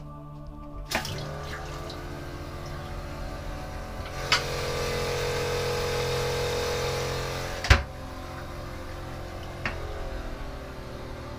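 Faucet on a boat's electric pressure-water system opened over a stainless steel sink, with the pressure pump's steady hum underneath: water runs strongly for about three seconds in the middle and stops with a sharp click. A softer click comes about a second in and another near the end.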